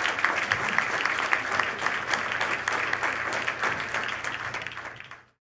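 Audience applauding, a dense patter of many hands clapping that thins out and then cuts off abruptly about five seconds in.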